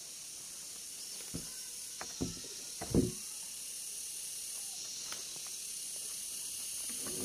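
Freshly sawn timber slabs knocking against each other and the log as they are shifted by hand. There are a few dull wooden knocks in the first three seconds, the last the loudest, over a steady high hiss.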